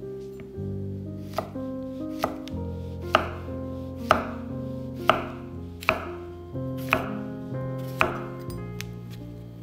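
Chef's knife slicing a white button mushroom on a wooden cutting board. About eight cuts come roughly a second apart, each ending in a sharp knock of the blade on the board, over soft background music.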